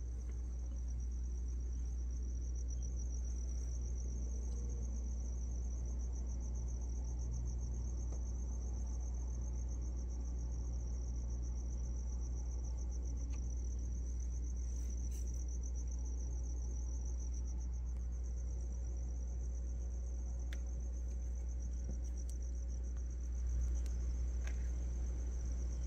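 Crickets trilling steadily in a fast, even, high-pitched pulse, over a low steady rumble.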